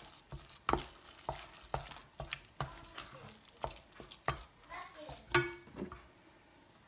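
Wooden spoon stirring and beating a stiff flour, water and oil churro dough in a stainless steel saucepan, knocking and scraping against the pan about twice a second. The knocking stops about six seconds in.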